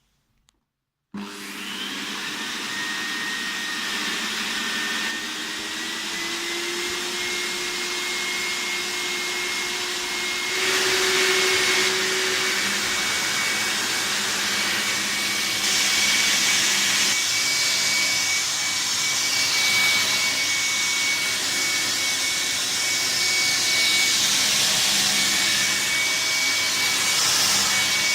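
VAX T1300 upright vacuum cleaner switched on about a second in, its motor whine rising quickly to a steady high-pitched running tone. It gets louder about ten seconds in and changes again around sixteen seconds, with a sweeping hiss as it runs.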